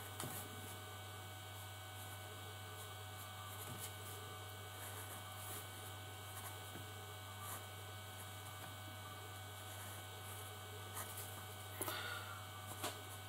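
Faint, steady electrical mains hum with a low buzz, and a few faint light clicks near the end.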